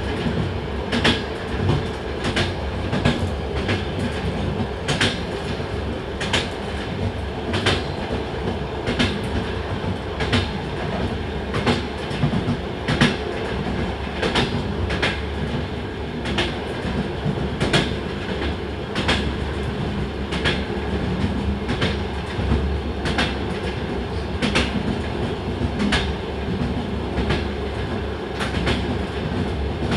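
Train running along the track: a steady rumble under the regular clack of wheels over rail joints, about once a second.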